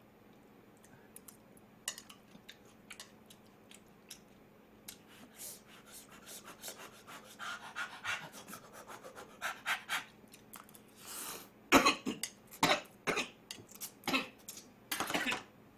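Man eating ramyeon noodles, with small chewing and slurping mouth sounds, then in the last few seconds a run of about six hard coughs as he chokes on the noodles.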